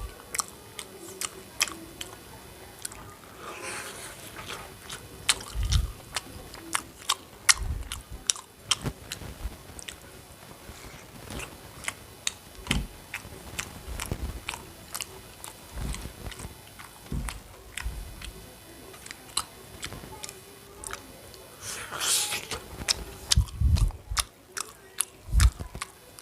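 Close-miked chewing and biting of food in a mukbang, with many small wet clicks and occasional crunches.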